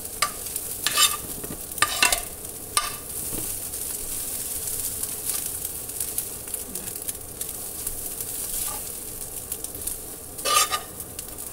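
Mixed greens thoran with egg sizzling in a metal frying pan while being stirred with a metal slotted spoon. Several sharp scrapes of the spoon against the pan in the first three seconds and a longer, louder one near the end, over a steady frying hiss.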